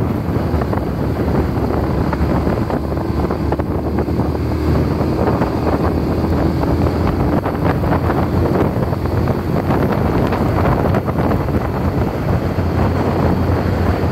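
Wind rushing over the microphone of a moving cruiser motorcycle, steady and loud, with the motorcycle's engine running underneath as a low hum.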